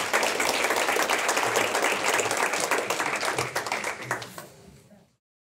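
Audience applauding in a lecture room, a dense patter of many hands clapping that fades away about four to five seconds in.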